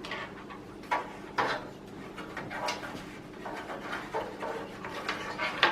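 Plastic PC case fans being handled and fitted in front of a liquid-cooling radiator: a few scattered light knocks and clicks with rubbing between them.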